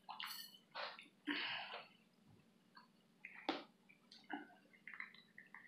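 Cooked lobster tail being pulled apart by hand, with chewing: a string of short, wet squishing crackles of shell and meat, with one sharp crack about three and a half seconds in.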